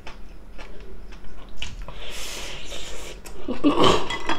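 Close-miked chewing and mouth clicks of people eating braised beef ribs, with a breathy hiss about two seconds in and a louder burst of mouth noise near the end as a piece of meat is bitten into.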